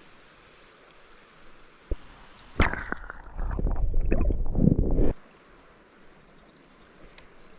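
Water splashing and gurgling for about two and a half seconds, starting abruptly and stopping suddenly, over a faint steady hiss; a single sharp click comes shortly before it.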